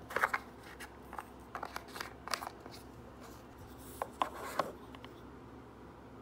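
Small plastic cosmetic containers handled on a desk: a cream jar and a lip balm tube being picked up and set down, giving a series of light clicks, taps and rubs. One cluster comes at the start, scattered ones follow over the next two seconds, and another cluster comes about four seconds in.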